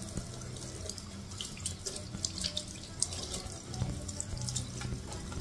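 Water running from a tap into a marble sink while hands are rinsed and rubbed under the stream, with small splashes and spatters throughout.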